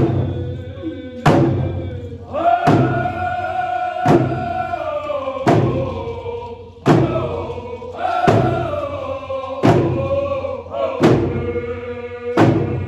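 A group of voices singing a song together in long held notes, with hand drums struck in unison in a slow, steady beat of about one strike every second and a half.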